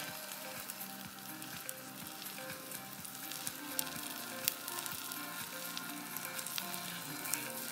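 Wood campfire burning, with a steady hiss and many small crackles and pops from the burning sticks and embers, one louder pop about halfway through.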